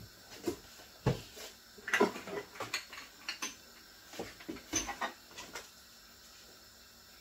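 Kitchen wall cupboard door opened, then a run of knocks and clinks as seasoning jars and containers are taken out and handled.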